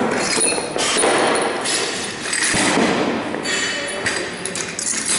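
Weight plates clanking and knocking against a barbell and each other as the weights on the bar are changed.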